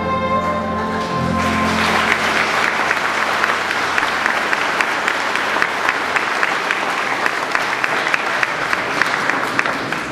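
A song's final held chord ends a little over a second in, and the audience claps steadily, tapering off near the end.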